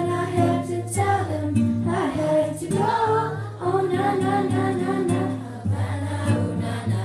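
Girls singing a pop song together, accompanied by a strummed acoustic guitar.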